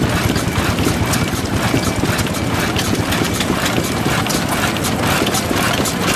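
1917 Austral 3.5 hp portable oil engine running: a steady low beat with a train of regular sharp ticks.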